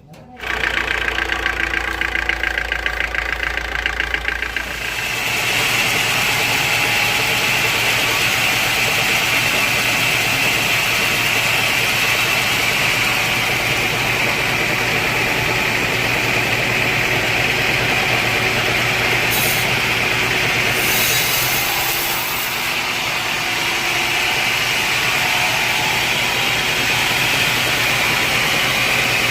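Sawmill machinery running steadily; its tone shifts about five seconds in, the low hum giving way to a brighter, higher steady whine.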